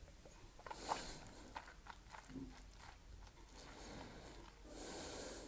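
A person sipping whisky from a glass and tasting it: a faint sip about a second in, then small wet mouth clicks as the whisky is worked around the mouth, and a breathy exhale near the end.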